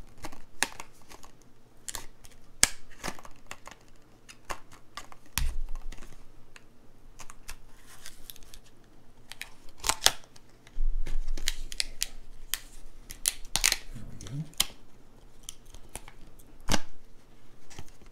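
Stiff clear-plastic blister pack being sliced open with a folding pocket knife and pried apart by hand: an irregular run of sharp clicks, snaps and crackles from the plastic.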